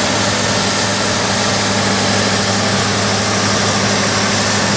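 Large four-wheel-drive farm tractor's diesel engine running steadily under load as it pulls a disc harrow through the soil, a constant low drone with no change in pitch.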